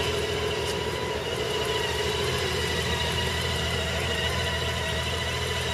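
Honda Gold Wing's flat-six engine idling steadily.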